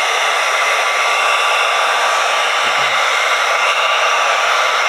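Electric heat gun running steadily: an even hiss of blown air with a faint steady whine from its fan, warming a wet vinyl decal.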